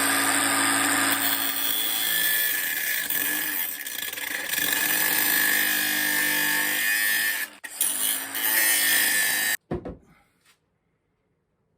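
Electric drill running under load for about nine seconds, its motor spinning up at the start, briefly stopping and restarting near the end, then cutting off suddenly.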